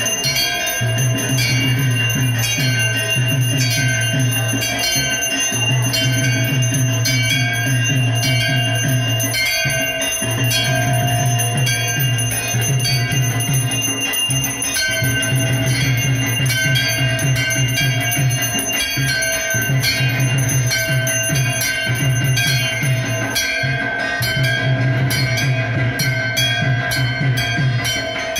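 Bells ringing rapidly and repeatedly, about three strikes a second, their ringing tones lingering, over a steady low drum beat: temple puja bells and drum.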